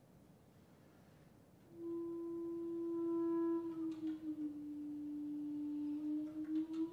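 Clarinet playing one long, soft held note that enters after about a second and a half of quiet, sags slightly in pitch in the middle and comes back up near the end, its loudness wavering as it bends.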